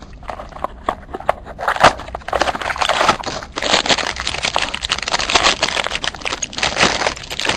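Packaging of a trading-card mini box being opened: plastic wrap and cardboard crinkling and crackling in continuous sharp handling noise.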